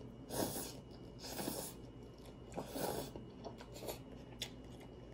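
Eating instant cup ramen noodles with chopsticks: a few short slurps and chewing sounds, spaced about a second apart.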